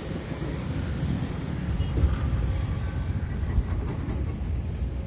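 Heavy diesel construction machinery running with a steady low rumble. Two sharp knocks come through, about two seconds in and again about a second and a half later.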